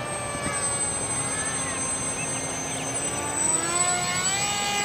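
Small electric RC plane motor and propeller whining steadily, its pitch climbing over the last second or two.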